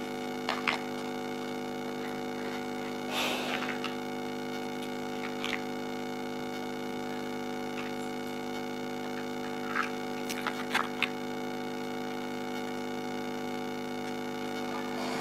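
Plastic building blocks clicking and clattering now and then as they are picked up and pressed together, with a brief rattle about three seconds in, over a steady electrical hum.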